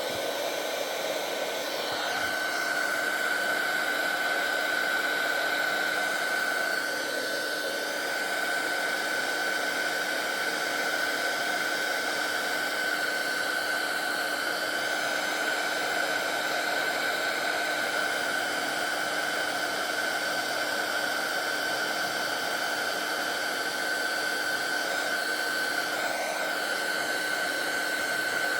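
Embossing heat gun blowing steadily, a constant rush of air with a high fan whine, melting gold embossing powder.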